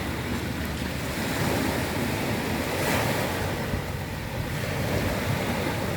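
Sea waves washing in and out over a pebble beach, a steady rush that swells to a louder surge about halfway through.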